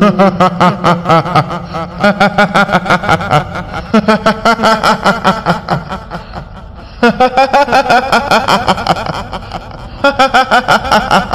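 A woman's high-pitched, rapid 'hihihi' cackling laugh, the kuntilanak ghost laugh of Indonesian horror. It comes in four bouts, with short breaks about 4, 7 and 10 seconds in.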